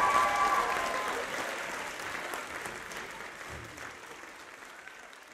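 Audience applauding, with a few voices calling out in the first second, fading steadily away.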